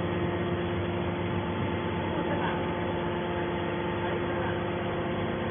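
Horizontal hydraulic metal baler running with a steady, even hum from its motor and hydraulic pump.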